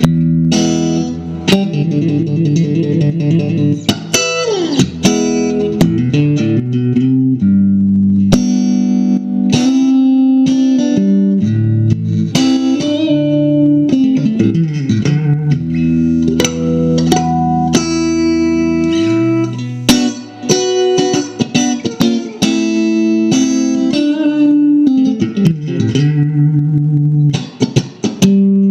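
A 1983 Fender Stratocaster Elite electric guitar being played: a run of chords and single notes, with several notes sliding up or down in pitch.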